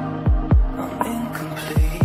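Instrumental music of held chords with several deep beats and no singing.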